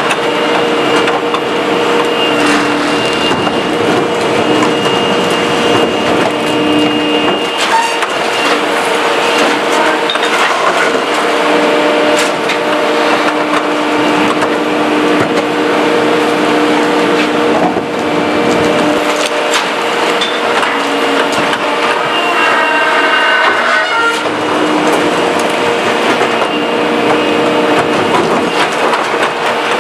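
Pak-Mor rear-loader garbage truck's hydraulics running with a steady whine as the cart tippers dump carts and refuse is crushed in the hopper, with continuous crackling and crunching. Plastic carts knock sharply now and then.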